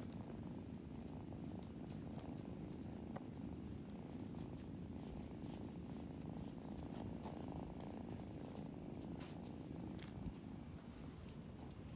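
Kitten purring steadily while being stroked on the head, with a few faint ticks over the purr.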